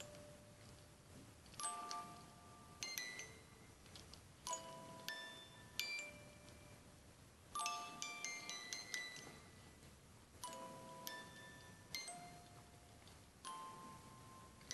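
Small wind-up cylinder music box movement playing a slow tune, its metal comb plucking bright ringing notes, several at once at times.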